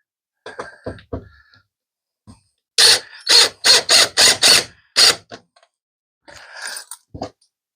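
A run of about seven short rasping scrapes, roughly three a second, with a few lighter clicks before them and a fainter scratch near the end: a body-worn microphone rubbing against a shirt.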